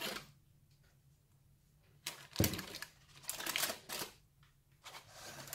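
A plastic measuring jug is set down on the kitchen counter with a single knock about two seconds in. Then come several short bursts of parchment baking paper rustling as hands handle the lining of the cake pan.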